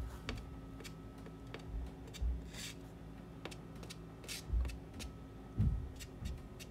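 A large Diane Townsend soft pastel stick scraping across pastel paper in short scratchy strokes, with a couple of dull knocks of the hand against the board about four and a half and five and a half seconds in.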